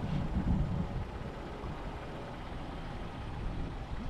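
Steady low rumble of distant highway traffic.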